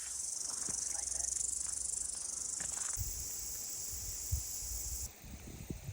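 A steady, high-pitched chorus of insects in bush, which thins about five seconds in, with a few soft low thumps.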